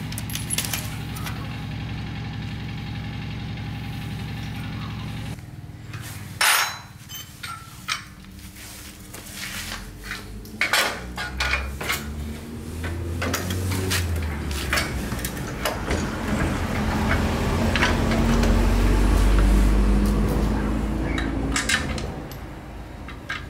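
A motorbike engine running steadily, shut off about five seconds in. Then scattered metallic clinks and knocks of tools, and in the second half a low rumble that builds and then fades.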